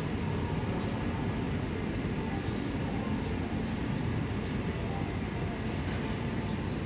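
Gas burner under a cast-iron apam balik pan running with a steady low rumble, with no distinct knocks or clicks.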